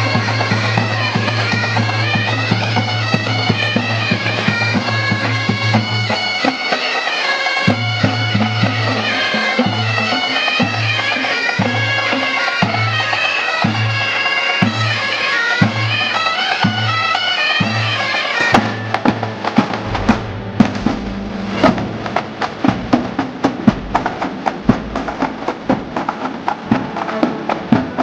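Scout pipe band playing: bagpipes sound a melody over their steady drone with drums beneath. About two-thirds of the way through the pipes stop and the drums carry on alone with quick, rattling strokes.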